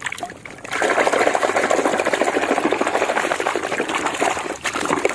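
Rapid churning and sloshing of foamy, muddy water as a plastic toy shark is scrubbed vigorously by hand in a tub. It starts about a second in and stops near the end.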